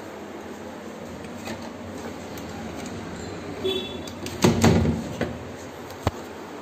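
Aluminium-framed sliding window moved by hand: a short squeak, then the loud noise of the sash running along its track about four and a half seconds in, and a single sharp click near the end.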